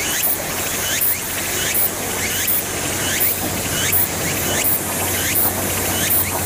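KiHa 189 series diesel railcar approaching, its engine a low steady hum slowly growing louder. Over it, a loud insect-like call repeats about once every 0.7 s, each a high hiss that slides down in pitch.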